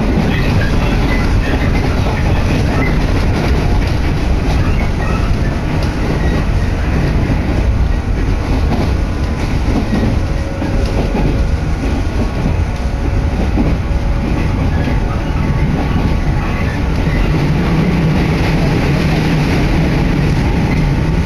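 Inside a passenger car of an electric train running on the JR Sanyo Line: steady rumble of the wheels on the rails, with clatter over the rail joints. A low hum grows stronger near the end.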